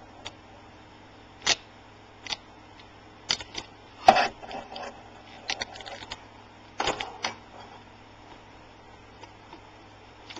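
Small metal tools clicking and snapping against the sheet-metal frame of an LCD panel as it is pried loose: a dozen or so sharp, irregular clicks, loudest about four seconds in.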